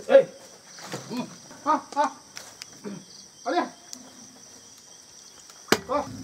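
Crickets chirring in a steady, high-pitched night chorus, with a few short calls and a sharp click near the end.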